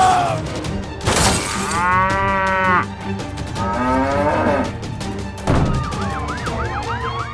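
Two drawn-out animal-like calls, the second rising in pitch, over background music, followed near the end by a run of quick swooping tones.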